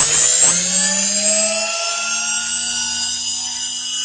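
Induction servo motor running on a reduced 110-volt supply and spinning up toward about 15,000 RPM. It makes a whine that climbs in pitch and then levels off into a steady tone as the motor nears top speed.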